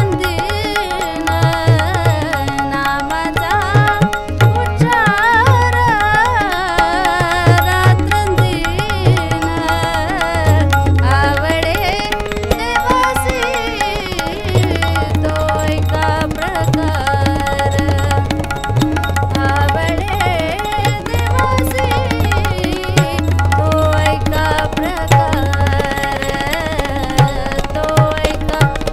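Woman singing a Marathi devotional abhang, accompanying herself on harmonium, with tabla keeping a steady rhythm; the tabla's bass drum gives repeated deep, sustained booms under the melody.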